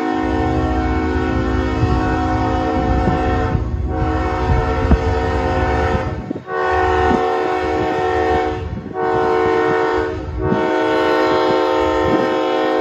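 Nathan Airchime K5HLB five-chime locomotive horn (raised-letter version) on an approaching diesel locomotive, sounding a chord in a series of blasts with four brief breaks. The fourth blast is shorter and the last is held. A low diesel rumble runs underneath.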